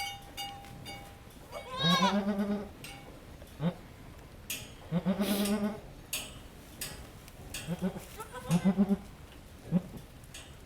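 A goat doe in labor bleating: three long, wavering bleats with a few short ones between them.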